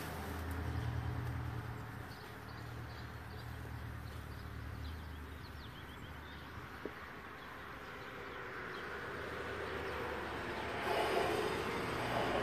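Outdoor background sound: a low engine-like hum for the first few seconds that fades out, a few faint high chirps a few seconds in, and a general rise in noise near the end.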